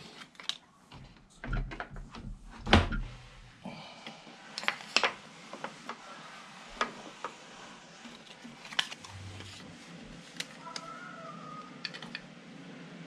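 Scattered clicks and knocks of a small wooden part and tools being handled and set on a router table, loudest in the first few seconds. A faint steady hiss sets in about four seconds in.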